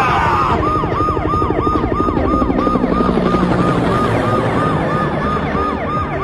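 Sound-effect sirens wailing in a rapid, repeating pattern: each sweep jumps up and falls away, about three a second, over a steady low rumble.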